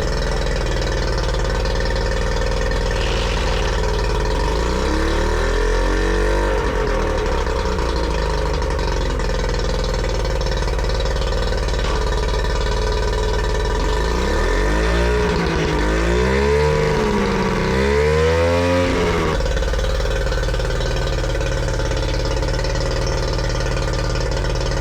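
Yamaha 40 hp two-stroke outboard engine running steadily. Its pitch rises and falls about five seconds in, and again in a longer swell from about fourteen to nineteen seconds.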